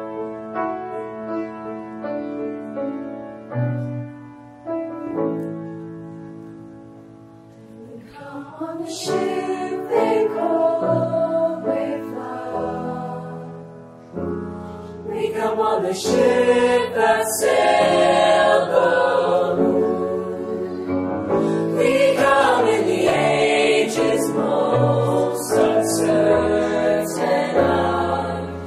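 Vocal jazz ensemble singing with piano accompaniment. It starts with soft sustained chords that fade away; the voices come back in about eight seconds in and grow fuller and louder from about fifteen seconds.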